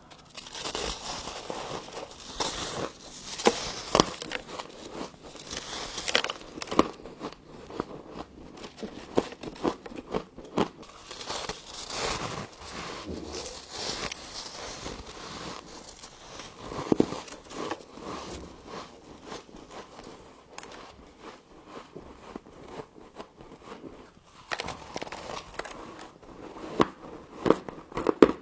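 Frost being bitten and chewed close to the microphone: a dense run of crisp crunching and crackling, with sharper crunches scattered throughout.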